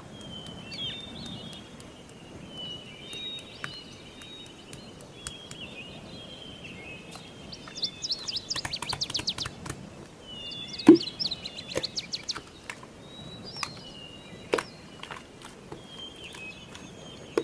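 Small birds chirping and twittering in short repeated phrases, with quick trills near the middle, a few scattered clicks and one sharper knock about eleven seconds in.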